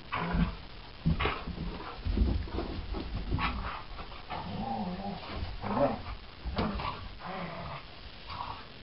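Two dogs, a greyhound and a tan mixed-breed dog, play-fighting: short bending growls and huffs in irregular bursts, with low thumps as they jump and land.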